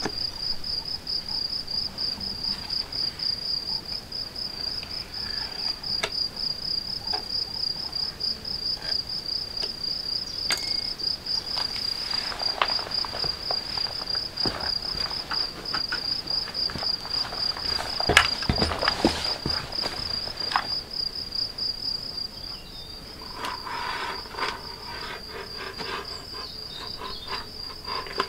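A cricket trilling steadily, a continuous high-pitched pulsing chirp that never stops. Scattered knocks and rustles come through the middle, the loudest about two-thirds of the way in, and a patch of quick clicking comes near the end.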